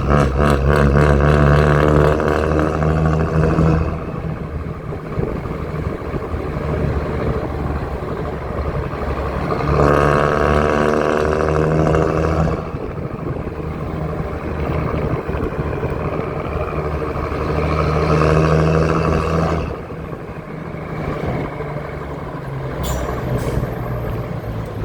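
Mercedes-Benz 1114 truck's diesel engine revved and held three times, at the start, about ten seconds in and again near two-thirds through, dropping back to a lower, rough idle in between. A few short sharp clicks near the end.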